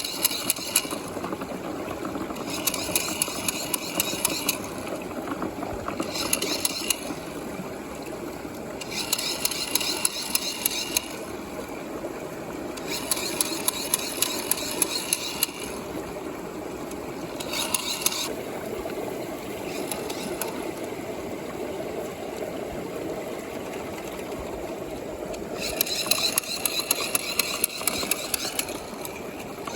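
Water churning in a plastic tube under a small pump, a steady hum with the rush of water. Every few seconds come spells of rapid bubbling and rattling as big air bubbles pass through.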